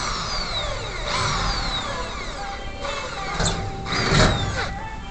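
Power drill run in four short bursts against overhead spandrel ceiling panels, its whine falling in pitch during each burst, with background music underneath.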